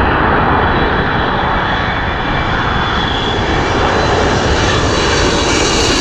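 Airliner coming in to land, passing low overhead: a loud, steady engine noise with a faint high whine, its upper register growing brighter toward the end.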